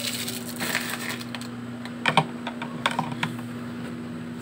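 Light, irregular clicks and taps of makeup pencils knocking together and against a plastic organizer as they are handled and put away, the loudest about two seconds in, with a plastic sleeve rustling about a second in. A faint steady hum runs underneath.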